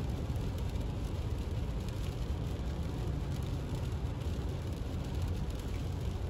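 Steady low road and tyre rumble of a car at highway speed on wet pavement, heard from inside the cabin, with rain on the windshield.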